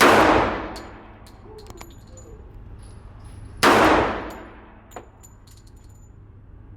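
Two pistol shots about three and a half seconds apart, each loud and echoing, with light metallic clinks and rings in between.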